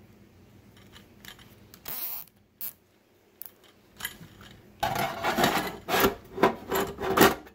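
A nylon zip tie being ratcheted tight around a pair of heavy welding cables. There is a short rasping pull about two seconds in, then a run of louder rasping pulls and handling noise over the last three seconds.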